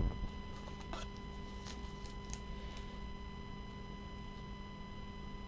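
Quiet room tone with a steady electrical hum, and a few faint clicks in the first three seconds.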